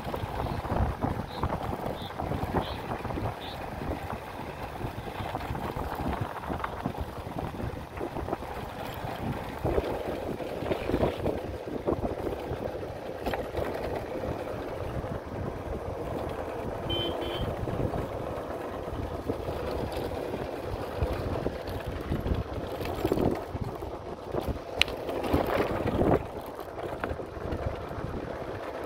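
Motorcycle riding at low road speed, its engine running under heavy wind buffeting on the microphone, the noise rising and falling unevenly.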